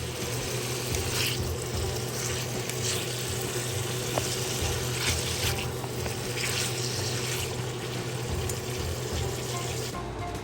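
Water running steadily from a kitchen tap, with a steady low hum under it.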